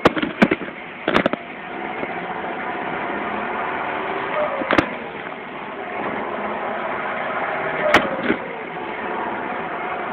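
John Deere 6430 Premium tractor's four-cylinder turbo-diesel engine running steadily with its turbo whistling. It grows louder about a second and a half in. Sharp clicks cut through it a few times near the start and once each about five and eight seconds in.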